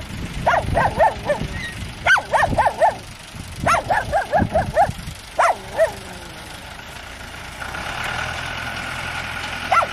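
A dog barking in quick runs of four or five sharp barks, four runs in the first six seconds. From about eight seconds in, the steady hum of a tractor engine comes up.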